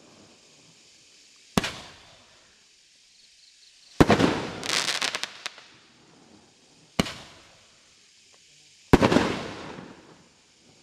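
A 1.2-inch eight-shot roman candle firing four sharp shots, two to three seconds apart, each dying away over a second or so. The second shot is followed by a quick run of sharp pops.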